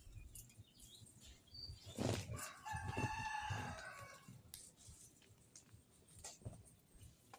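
A rooster crowing once, one long call beginning a little over two seconds in, with light clicks and rustling around it.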